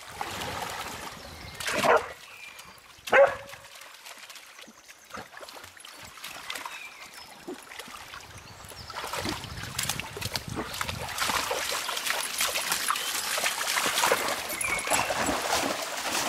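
A dog barks twice, about two seconds in and again a second later, while dogs wade and splash in shallow river water; the splashing and scuffling grow louder through the second half.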